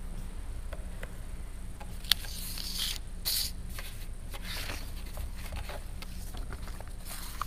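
Paper and a binder being handled close to a lectern microphone: a sharp click about two seconds in, then crisp page rustles on and off, over a steady low hum.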